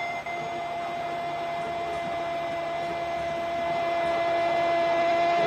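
Radio football commentator's drawn-out goal cry, the "gooool" held as one long shouted note at a steady pitch.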